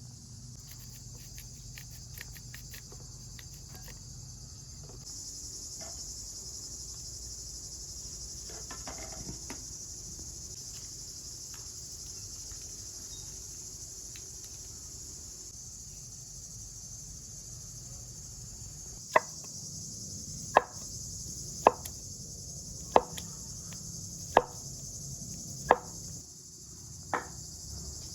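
Crickets chirring steadily. In the last third come about eight sharp knocks, one every second and a half or so, the loudest sounds here.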